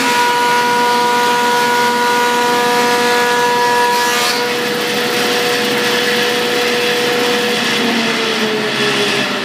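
Stationary wood planer running under load as a board feeds through it: a loud, steady cutting noise with a whine of several tones. The higher tones drop out about four seconds in, and the main tone sags slightly in pitch near the end.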